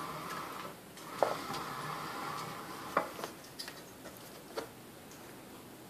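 Metal swivel bar stool: a steady whirring spin dies away in the first second, then about four sharp metallic clicks and knocks follow as hands grab and turn the frame. The loudest knocks come about a second in and at three seconds.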